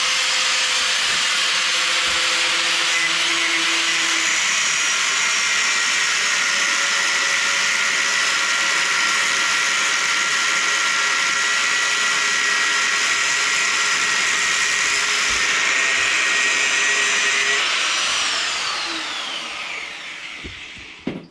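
Angle grinder cutting into metal: a steady high whine with grinding hiss at full speed, then released near the end and spinning down with falling pitch.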